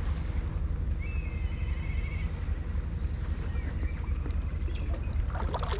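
Steady low wind rumble on the microphone, with a bird's warbling call about a second in and a shorter high call around three seconds. A few short clicks and knocks come near the end.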